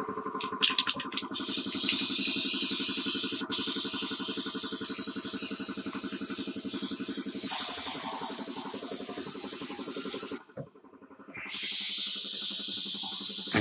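Aerosol can spraying adhesive onto a carpet panel in a long, loud hiss. A few clicks come first, then the spray starts about a second in, cuts out for about a second near the end and resumes.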